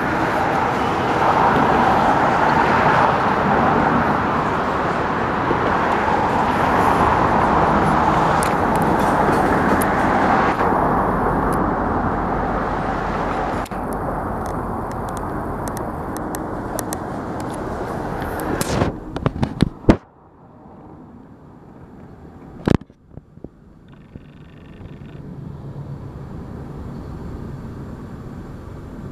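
Slow Union Pacific freight train rolling past below with a steady rumble, mixed with road traffic noise. About two-thirds through, a cluster of sharp clicks comes and the sound drops suddenly much quieter. A single sharp knock follows shortly after, then the rumble builds up again.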